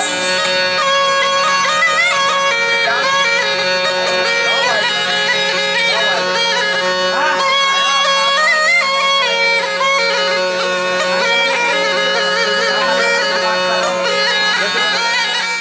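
Intro music: a reedy wind instrument plays an ornamented melody over a steady drone note. It cuts off at the end.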